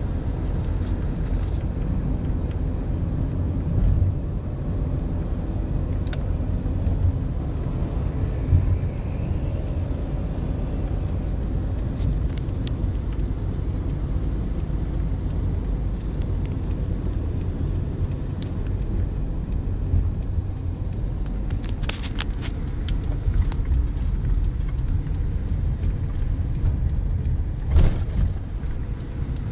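A car driving, heard from inside the cabin: a steady low rumble of engine and road noise, with a few short clicks or knocks, the loudest near the end.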